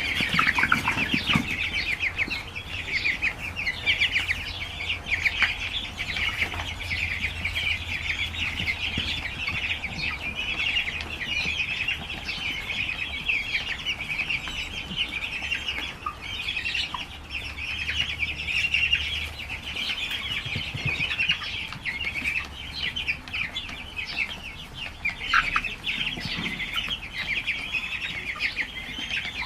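A flock of birds calling all at once: a dense, unbroken chatter of many short, high, overlapping calls.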